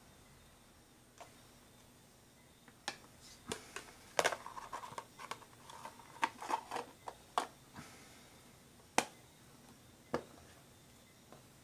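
Small plastic food containers and their snap-on lids being handled: a string of sharp plastic clicks and knocks. They are busiest between about four and seven and a half seconds in, with single sharp clicks about nine and ten seconds in.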